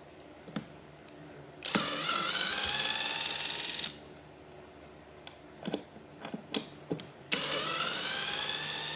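A JB801 12-volt electric screwdriver runs twice, backing screws out of a metal plate: each run whines up in pitch as the motor spins up, then holds steady for about two seconds. A few light clicks fall between the two runs.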